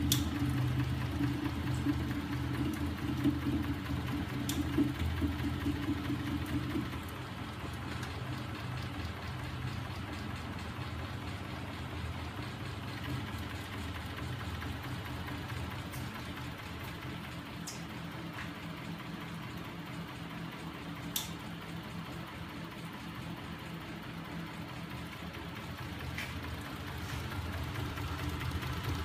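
Homemade magnetic linear crankshaft rig running, turned by a small 12-volt electric motor: a steady mechanical hum, louder for about the first seven seconds and then quieter and even, with a few brief ticks.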